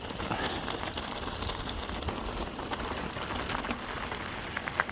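Mountain bike rolling down a rocky trail: tyres crunching over gravel and rock, with many scattered clicks and rattles over a steady low rumble.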